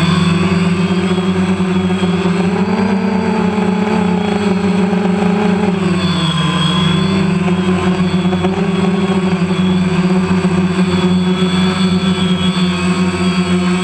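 Multirotor drone's electric motors and propellers whining steadily, picked up by the camera on the drone itself. The pitch rises a little a couple of seconds in and dips about six seconds in, then holds steady.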